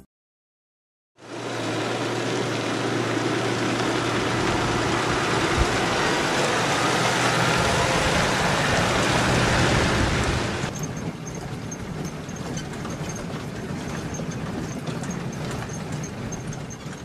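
A vehicle's engine running with a loud rush of road noise starting about a second in, dropping to a quieter hum about ten seconds in. Over the quieter part come faint, evenly repeated high chirps.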